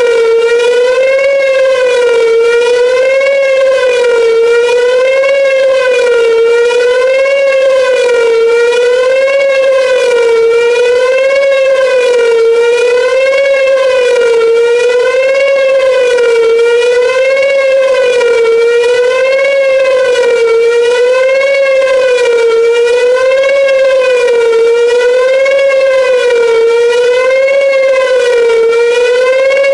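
Whelen WPS-2910 electronic outdoor warning siren sounding its wavering attack signal: one loud continuous tone whose pitch rises and falls about every two seconds.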